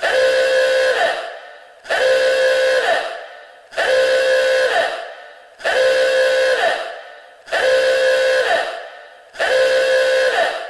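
Warning alarm horn sounding in repeated blasts, about one every two seconds. Each blast is a steady pitched tone held about a second that bends up slightly at its end and fades with an echoing tail.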